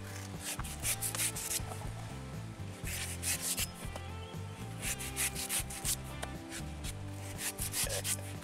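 A curved sickle-like knife slicing through the fibrous husk of a palmyra (toddy palm) fruit, in four bursts of quick scraping cuts about two seconds apart. Background music runs underneath.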